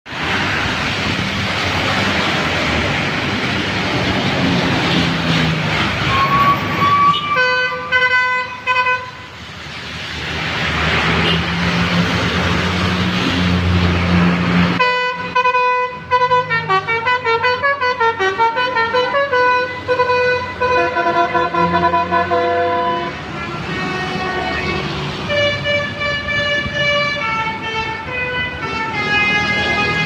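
Indonesian bus 'telolet' Basuri multi-tone air horns playing melodies: a short phrase about 7 s in, then from about halfway a long tune of quickly changing notes, with more tunes near the end. Between the horns, traffic hisses on a wet road.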